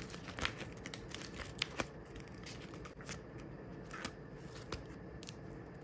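Clear plastic sleeves of a small ring binder rustling and crinkling as its pages are handled and turned, with scattered light clicks.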